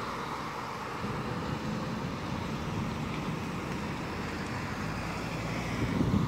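Articulated city bus pulling away down the road, its engine and tyre noise held steady, with a car coming up near the end.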